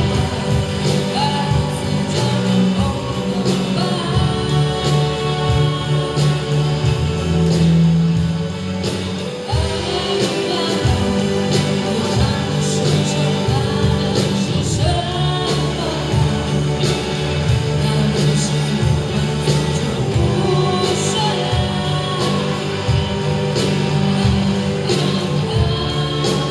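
Student rock band playing live, with a singer over electric guitars, bass and drums keeping a steady beat.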